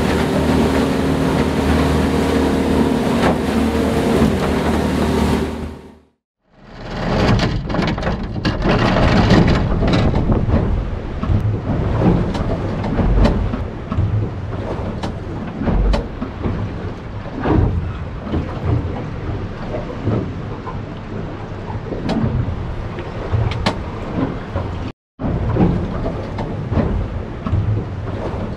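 Motorboat engine running steadily under way. After a break about six seconds in, it gives way to a rough rumbling noise with irregular thumps and crackles.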